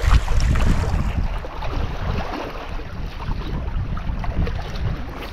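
Wind buffeting the microphone over the steady wash of the sea and surf.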